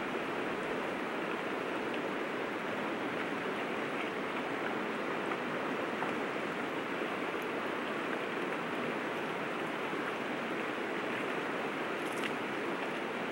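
River water flowing: a steady, unbroken rush of moving water.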